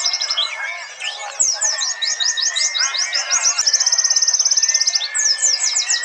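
Several white-eyes (pleci, Zosterops) singing at once in a dense chorus of fast, high chirps and trills, with a rapid, evenly spaced trill from about three and a half to five seconds in.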